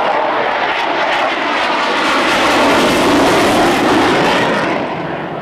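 F-22 Raptor's twin afterburning turbofan engines passing overhead during a flying display. The jet noise builds to its loudest a little past the middle, then eases off near the end.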